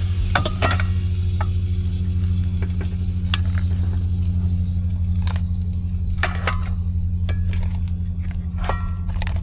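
A spatula clinking and knocking against a frying pan and a stainless steel bowl as cooked mud crab pieces are lifted out of the sauce: a scattering of sharp clinks over a steady low hum.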